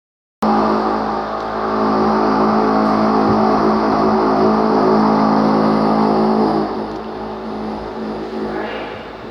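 A machine's engine running loudly at a steady, even pitch, cutting in abruptly and easing to a lower level about six and a half seconds in.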